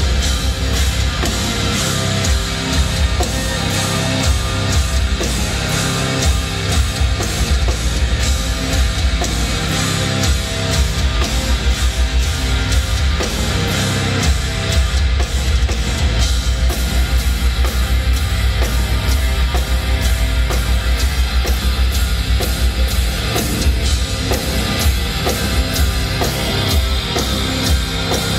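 Live metal band playing an instrumental passage: distorted electric guitars over bass and a pounding drum kit, loud and continuous.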